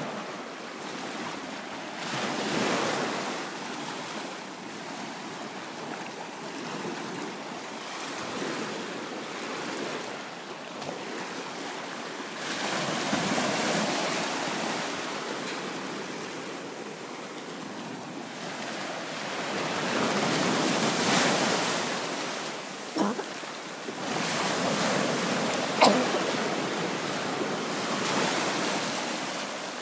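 Small bay waves breaking and washing up over sand at the water's edge, swelling louder every several seconds as each wave comes in. Two short sharp clicks sound late on.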